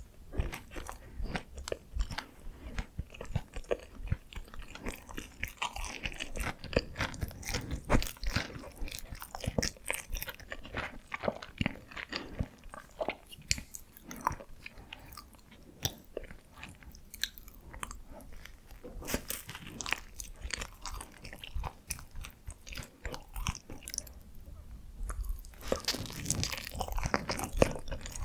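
Close-miked chewing and biting of Korean steamed buns (hoppang), with wet mouth sounds and irregular crunchy clicks.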